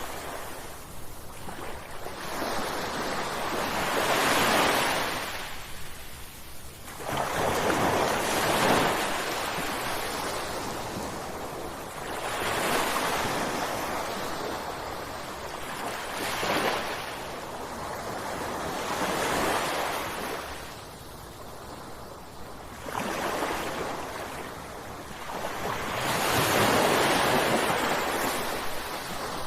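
Ocean waves crashing, the surf swelling and falling away again and again, about one surge every three to four seconds.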